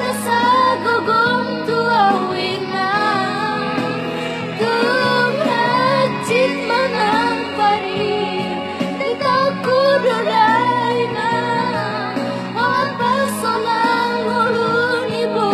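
A song: a woman singing a wavering melody over steady instrumental backing.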